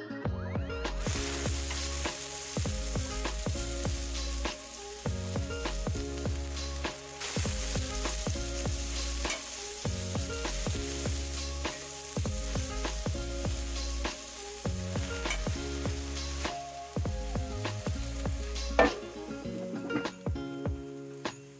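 Chopped peppers and onions sizzling in a hot oiled cast iron skillet, with a metal spatula scraping and clicking against the pan as they are stirred. A little before the end a sharp clank as the glass lid goes on, and the sizzle falls away.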